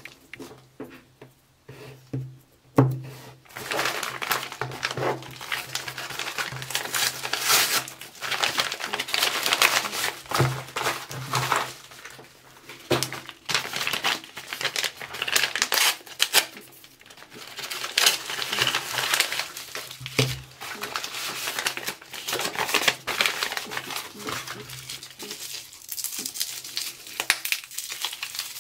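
Plastic sleeves, bubble wrap and a padded paper mailer crinkling and rustling as they are handled and pulled open, with a few tearing sounds. The crackling is dense and uneven, with a quieter lull a couple of seconds in.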